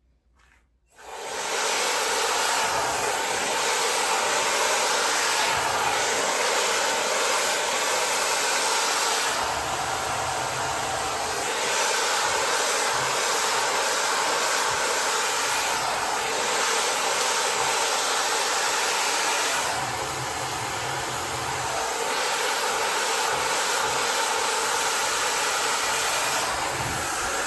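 A 260,000 RPM high-speed hair dryer, fitted with its magnetic nozzle, blowing steadily while drying hair. Its air rush starts about a second in, swells and eases slightly a few times, and cuts off just before the end.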